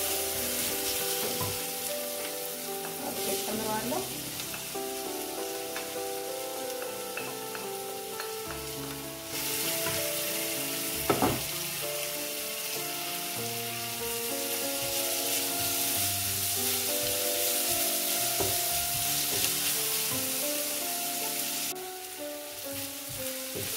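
Chopped onion, garlic and celery sizzling as they fry in oil in a pan, the sizzle growing louder about nine seconds in, with a single knock about eleven seconds in. Soft music with held notes plays underneath.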